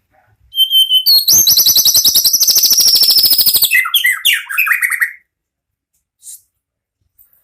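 White-rumped shama singing: a few short high whistles, then a long, very fast rattling trill, then several lower falling slurred notes, stopping about five seconds in.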